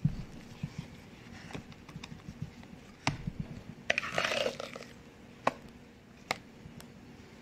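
Spatula folding meringue into a thick yogurt batter in a glass bowl: soft wet scraping and squelching, with several sharp taps of the spatula against the glass and a short burst of scraping about four seconds in.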